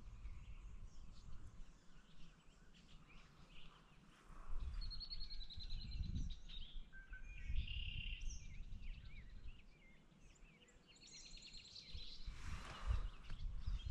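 Songbirds singing in the distance: a high trill heard twice and scattered chirps, over a faint low rumble that swells in the middle.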